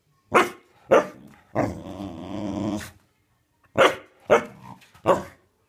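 A dog barking: two sharp barks, then a drawn-out vocal sound lasting over a second, then three more barks in quick succession.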